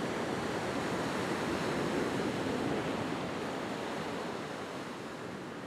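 Surf breaking and washing up the beach: a steady rush of waves that swells a little midway and eases slightly toward the end.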